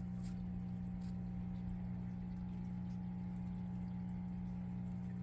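A steady low machine hum holding one pitch, with a few faint ticks.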